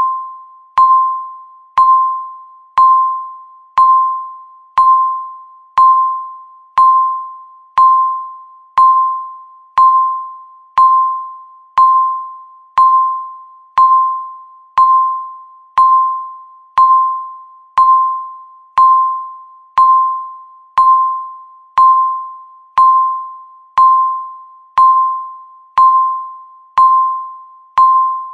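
Countdown timer beep: a single clear, mid-pitched electronic tone sounding once every second, each beep starting sharply and fading away before the next one, marking each second left on the timer.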